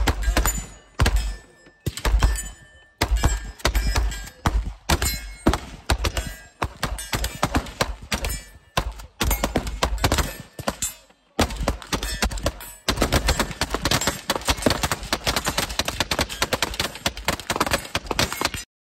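Rapid gunfire, with many shots, some single and some overlapping. About two-thirds of the way in it becomes a dense, near-continuous string of fast shots, which stops abruptly near the end.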